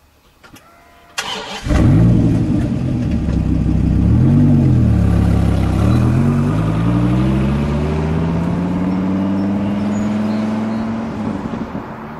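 Dodge Viper's V10 engine cranking briefly and catching, one quick rev, then pulling away with its note climbing steadily as the car accelerates. The engine note drops near the end as the car moves off and grows fainter.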